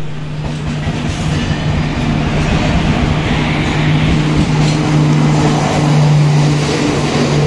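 Passenger train rolling past close along a station platform: steady rail and wheel noise over a continuous low hum that is loudest about six seconds in, as the luggage-brake-and-generator car goes by.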